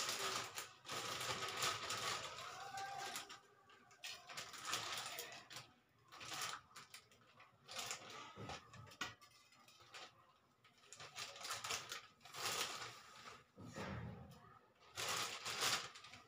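Thin plastic bag rustling and crinkling in irregular bursts as curry leaves are pulled out of it.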